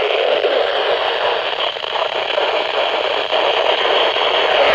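Steady static hiss from a NOAA weather radio receiver's speaker.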